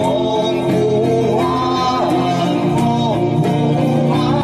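Men singing a folk-style song in long held notes, accompanied by an acoustic guitar.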